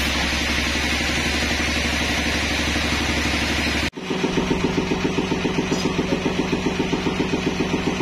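Band sawmill cutting through a trembesi (rain tree) log, a steady heavy machine sound with a hissing cut. About four seconds in it breaks off sharply and is replaced by a steady, evenly pulsing engine-like hum of about seven beats a second.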